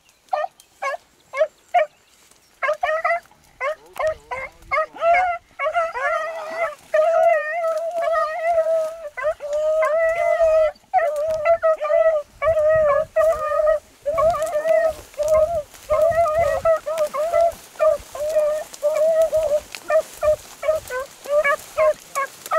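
Beagles baying on a rabbit's scent line. Short separate barks give way to longer drawn-out bawls a few seconds in, then a steady run of shorter barks.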